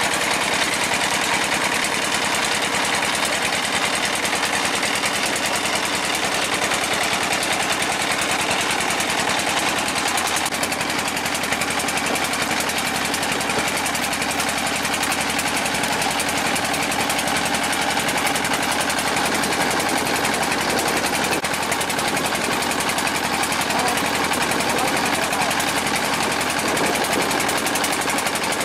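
Boat engine running steadily under way, a fast even pulsing beat that holds at one level throughout.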